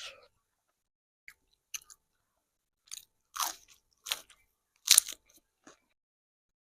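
A person biting and chewing crunchy food close to the microphone: a series of separate crunches with gaps between, the loudest about five seconds in.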